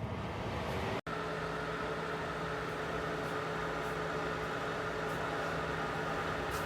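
Aikoper 1500 W ceramic space heater's fan running with a steady whir and a low hum, broken by a split-second dropout about a second in.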